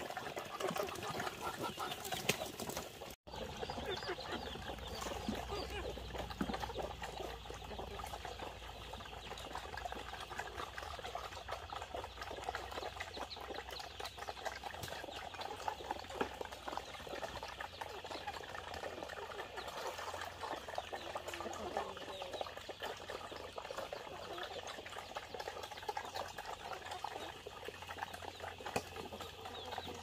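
Piglets, Muscovy ducks and chickens eating together at a feed trough: a dense, steady clatter of chomping, slurping and pecking with scattered animal calls.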